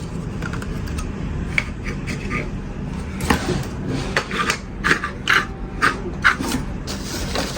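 Handling noise while unpacking: a quick run of about eight short scraping, rustling strokes in the middle, over a steady low hum.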